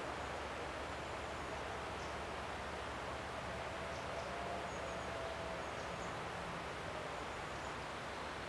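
Woodland ambience: a steady, even outdoor hiss with a few faint, short, high-pitched bird calls scattered through it, and a faint distant drone in the middle.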